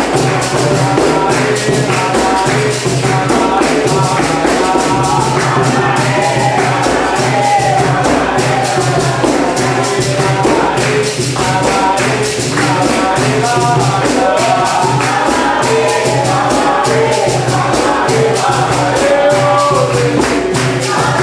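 Capoeira roda music: a group singing together over rhythmic hand clapping and a pandeiro's jingles and slaps, keeping a steady beat.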